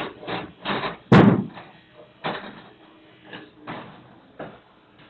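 Clog copying machine clattering as it is worked, with one loud bang about a second in, then a few separate knocks that die away.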